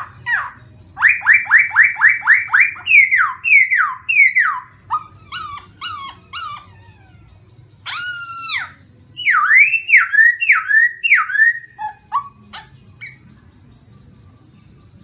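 Caged khướu mun (black laughingthrush) singing a loud, varied whistled song: a fast run of repeated falling notes, then slower slurred phrases, one long falling whistle about eight seconds in, and looping up-and-down whistles before it stops about two seconds before the end.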